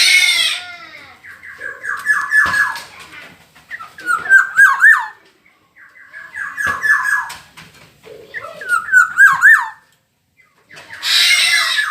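Black-naped oriole (kepodang emas) calling: repeated short phrases of whistled, fluty notes, with a harsh squawking call at the start and again near the end.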